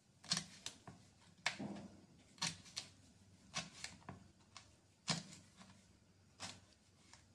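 Kitchen knife cutting a green bell pepper on a wooden chopping board: about nine sharp knocks of the blade on the board, irregularly spaced, around one or two a second.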